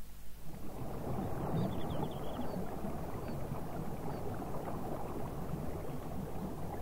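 Rushing river water, a steady wash that comes in about half a second in, with a few faint high chirps over it.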